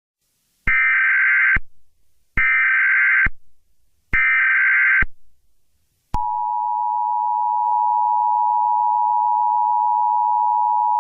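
Emergency Alert System header: three short bursts of buzzy digital data tones (the SAME header), evenly spaced, followed about a second later by the steady two-tone EAS attention signal.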